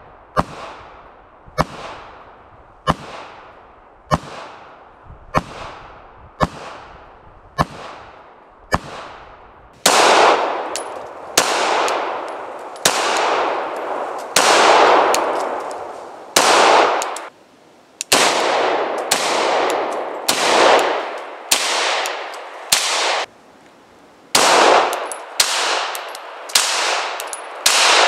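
9mm pistols (Glock 19X, FN 509 Tactical) firing single shots in slow aimed fire, roughly one shot every second or so. For the first ten seconds the shots are quieter and sharp, heard from down by the target. From about ten seconds in they are much louder, heard from beside the shooter, and each shot trails off in a long echo.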